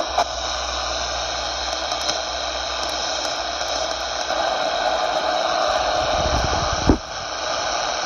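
Luiton LT-298 CB radio hissing with steady receiver static on an empty channel. About seven seconds in the hiss breaks off briefly with a click, then comes back.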